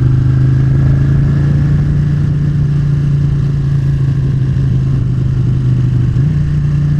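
Motorcycle engine running at a steady speed while riding, its pitch stepping up slightly about six seconds in.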